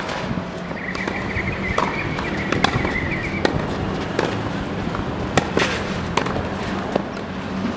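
Tennis rally on a clay court: a series of sharp pops of racket strings striking the ball, with the ball bouncing on the clay, coming irregularly about once a second.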